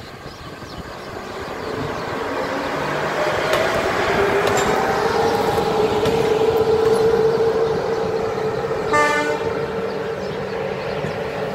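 CFR Electroputere LE 060 EA class 43 electric locomotive running past, its steady hum and a faint rising whine growing louder as it nears. A short horn toot sounds about nine seconds in.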